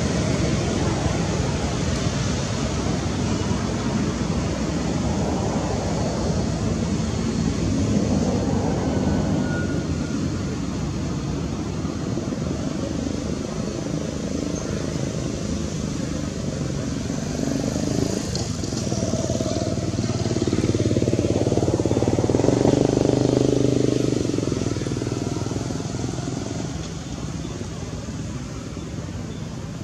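Steady outdoor rumble of motor traffic, swelling louder as a vehicle passes about twenty seconds in, then fading toward the end.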